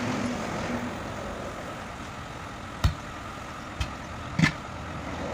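A tyre lever knocking against a truck wheel rim while a tyre is worked onto it: three short, sharp knocks in the second half, the last the loudest, over steady traffic and engine hum.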